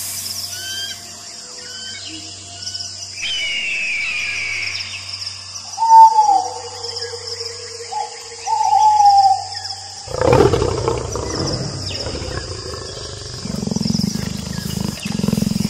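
Animal calls: short bird chirps in the first few seconds, two loud falling calls around six and nine seconds in, then a long rough low sound from about ten seconds in, over a steady high insect-like whine.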